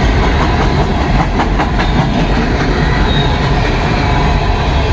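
Empty coal cars of a freight train rolling past close by: a steady, loud rumble of steel wheels on rail. A quick run of clacks comes about a second and a half in.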